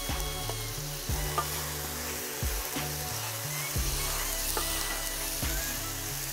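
Spicy stir-fried pork (jeyuk bokkeum) sizzling in a wide wok as the just-added red chili sauce fries into the meat and vegetables. A wooden spatula and chopsticks stir and scrape, with sharp clicks against the pan now and then.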